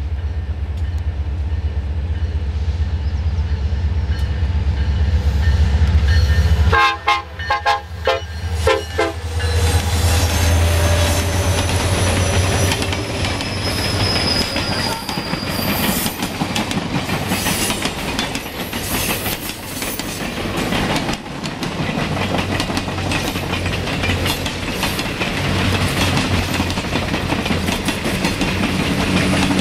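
Alaska Railroad EMD SD70MAC diesel locomotives passing close by with a deep engine rumble, broken about seven seconds in by a short choppy run of horn-like tones. The passenger cars then roll past with steady wheel clatter over the rail joints and thin high wheel squeal.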